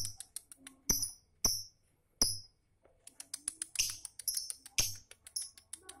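Lovebird chattering: rapid, very high ticks and short chirps in quick runs, broken by several louder sharp clicks and a brief lull near the middle.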